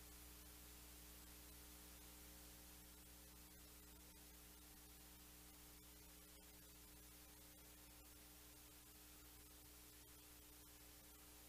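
Near silence: a faint steady electrical hum and hiss, with a few faint clicks.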